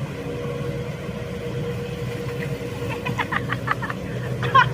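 Diesel engine of a Shantui SE75W wheeled excavator running steadily at idle, with a few short high chirps about three seconds in and again near the end.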